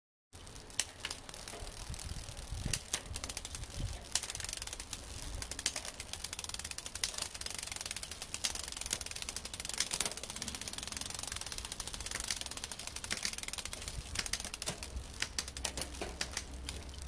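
2009 Specialized Hardrock mountain bike's chain running over the rear cassette and through the rear derailleur as the cranks are turned: a dense, rapid rattle of ticks and clicks. The drivetrain is a little noisy, the chain worn, with the shifting a bit rough on the top sprocket.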